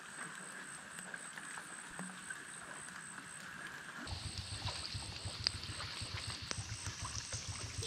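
Steady wet-weather ambience beside a forest pool: water noise with scattered small drip ticks. About four seconds in it changes abruptly to a lower, fluttering rumble.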